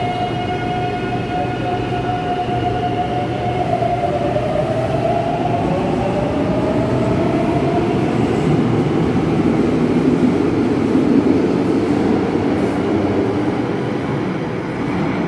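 Madrid Metro electric train pulling out of an underground station: its motors whine in several steady tones that shift in pitch a few seconds in, under a rumble of wheels on rail that builds, then fades near the end as the train leaves.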